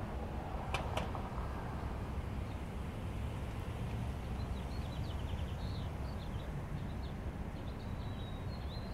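Steady low outdoor rumble of traffic and air noise, with a small songbird chirping in quick, repeated twitters from about halfway through. Two sharp clicks about a second in.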